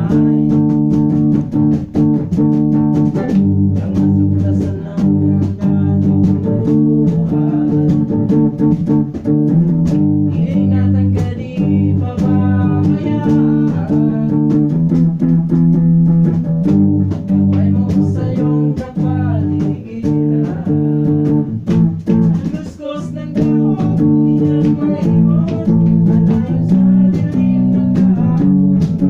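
A band playing a song, with guitar over a bass guitar line and some singing, at a steady loud level.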